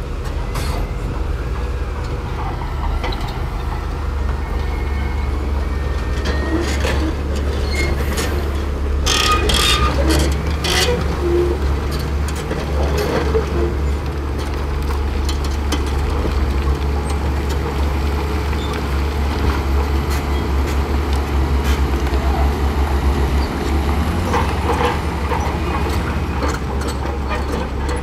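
Shantui crawler bulldozer's diesel engine running steadily under load, with the steel tracks clanking and squeaking as it pushes sand. A cluster of sharper metallic clanks comes about nine to eleven seconds in.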